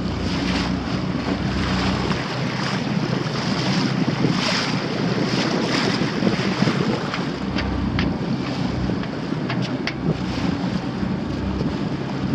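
Wind buffeting the microphone over the rush and splash of water along the hull of a small sailboat under way, with a few sharper splashes.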